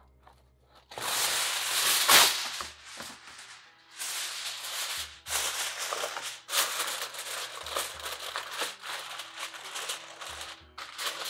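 Aluminium foil pulled off the roll and torn free, with a sharp loud rip about two seconds in, then crinkling and rustling in irregular bursts as the sheet is folded and pressed down around a tray.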